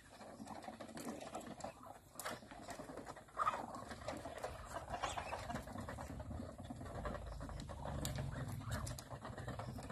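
Flock of Muscovy ducks, ducklings and chickens feeding at basins of grain: many quick pecking clicks and rattles of grain, with scattered soft bird calls, one louder call about three and a half seconds in.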